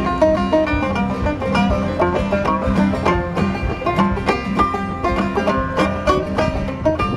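Clawhammer banjo playing an old-time tune, a steady, even run of quickly picked notes.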